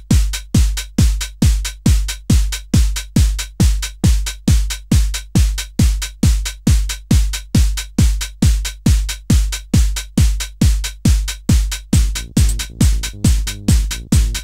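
Music with a heavy, steady kick-drum beat at a little over two beats a second, electronic in style. A pitched bass line comes in about twelve seconds in.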